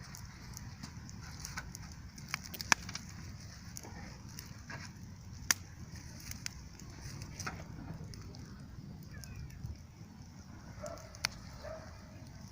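Wood campfire crackling, with irregular sharp pops from the burning wood, the loudest about three seconds in, halfway through and near the end.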